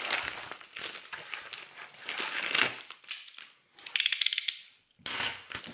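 Plastic mailing envelope crinkling and rustling as it is handled and cut open with a utility knife. After a brief pause there is a short run of rapid ticking about four seconds in, then more rustling.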